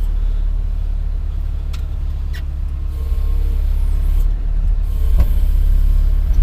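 Kobelco SK210 excavator's diesel engine running with a steady low rumble, with a few short clicks over it.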